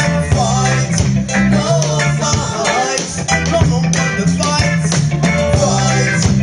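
Reggae band playing live, with a heavy bass line, a steady drum beat, guitar and a singing voice.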